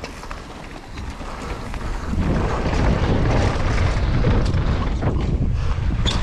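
Wind buffeting an action camera's microphone as a mountain bike picks up speed downhill, a low rumble that swells about two seconds in and then holds steady, with a few sharp clicks and rattles from the bike and trail.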